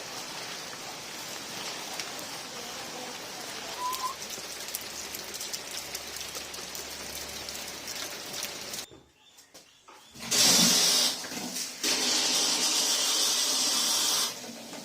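Steady rain falling and pattering. After a short break, water rushes out loudly and steadily for about four seconds, then stops.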